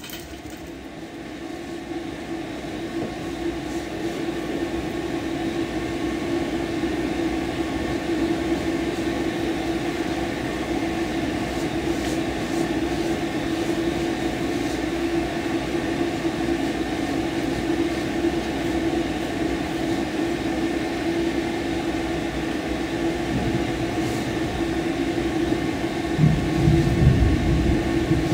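Pet blow dryer blowing on a wet dog's coat: a steady rushing of air with a low hum, building over the first few seconds and then holding.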